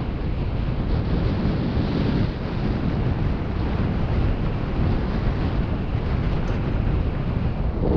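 Wind buffeting the microphone of a camera on a mountain bike in motion, a steady rumbling noise with no clear tones.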